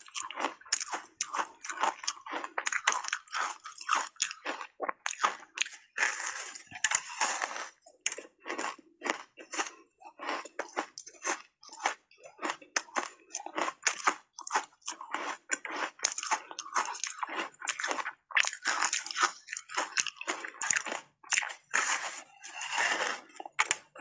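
Ice coated in matcha powder being bitten and chewed close to a clip-on microphone: a continuous run of sharp, irregular crunches and cracks, several a second.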